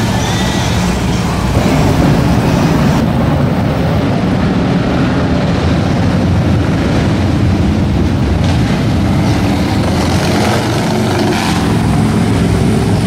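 Motorcycle and car engines in busy street traffic: a touring motorcycle rides past near the start, over a steady low engine sound.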